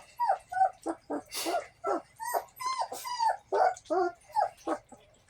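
Young puppies whining and yelping in a rapid run of short high calls, about three a second, that stops shortly before the end.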